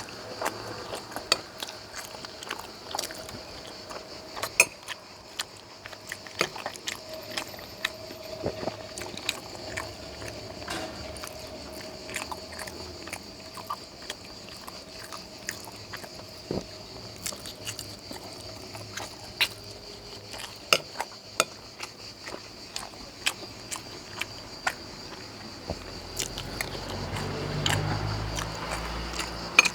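Close-miked eating: chewing and wet mouth sounds of a person eating sweet potato and fried egg, with many scattered sharp clicks. A faint steady high whine runs underneath.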